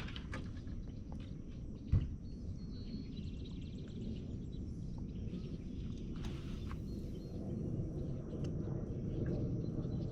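Outdoor ambience: a steady low rumble with birds chirping and a short buzzy trill. There is a single dull thump about two seconds in.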